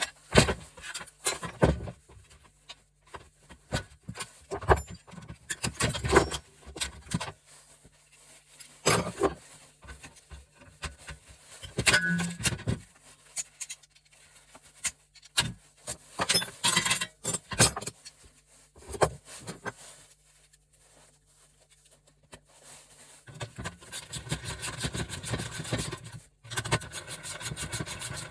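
Metal parts and hand tools clinking, knocking and scraping as a gas stove is taken apart by hand, in scattered sharp hits, then a steadier run of rapid rasping near the end.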